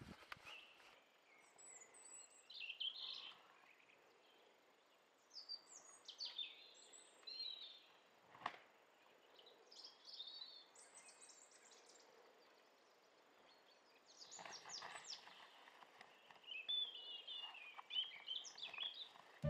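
Faint birdsong: small birds chirping and trilling at intervals, with a single click about eight and a half seconds in.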